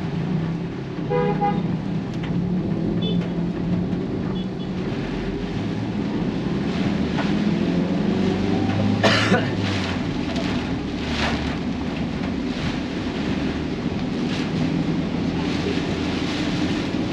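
Road traffic with a steady engine hum, a short vehicle horn toot about a second in, and one sharp burst of noise about nine seconds in.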